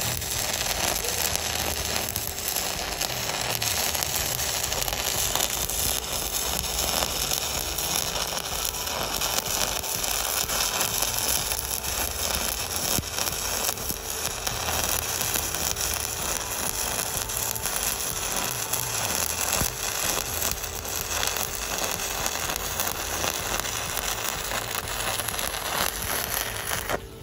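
Stick (MMA) welding arc from a Volt TIG210BV 200 A inverter welder, crackling and sizzling steadily as a covered electrode burns along a bead on steel plate. The arc breaks off suddenly at the very end.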